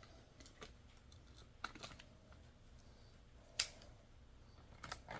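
A few faint, scattered clicks and taps of small chainsaw parts being handled and fitted during reassembly, the sharpest about three and a half seconds in.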